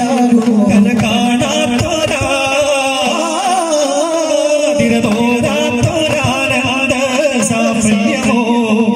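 Daff muttu: voices chanting a song in unison to the beat of daf frame drums. The drumming drops out for about two seconds, three seconds in, while the singing carries on, then comes back.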